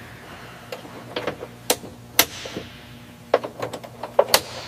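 Assembly-work noise in an aircraft hangar: irregular sharp metallic clicks and clanks of parts and tools being fitted, over a steady low machinery hum.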